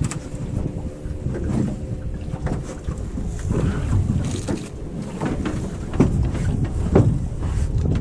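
Wind buffeting the microphone and small waves slapping against the hull of a drifting aluminium boat, with scattered knocks on the hull, the sharpest about six and seven seconds in.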